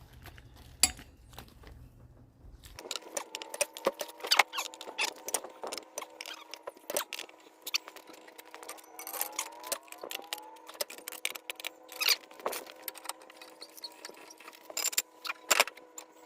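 Scattered metal clinks and knocks from a lug wrench and socket being worked while breaking the lug nuts loose on a truck wheel. A faint steady hum sets in about three seconds in.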